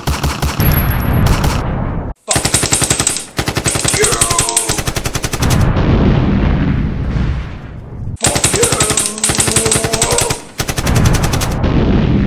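Stock sound effects of machine-gun fire in long, rapid bursts, alternating with explosion blasts.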